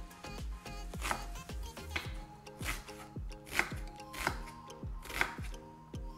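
Knife dicing a raw onion on a wooden cutting board: sharp chops at an even pace, roughly one a second, with soft background music underneath.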